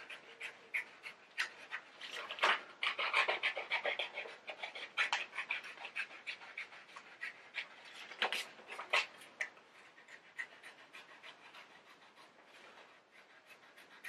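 Scissors cutting a circle out of a sheet of paper: a run of short, crisp snips with paper rustling, thickest in the first half and thinning out toward the end.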